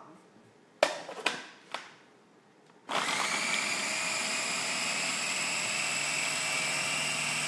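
A few plastic clicks as the motor top is fitted onto the bowl of an electric mini chopper. About three seconds in, the chopper starts and runs steadily with a high whine, chopping garlic and ginger.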